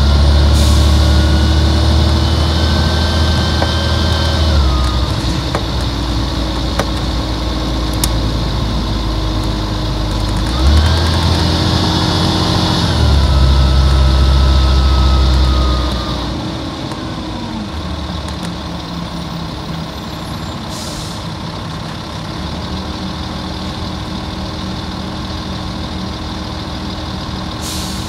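Volvo D10A-245 six-cylinder diesel of a Volvo Olympian double-decker bus pulling under load, with a whine that rises and falls in pitch. The engine eases off about five seconds in, pulls hard again from about eleven seconds with a short hiss, then drops back to a quieter steady idle after about sixteen seconds.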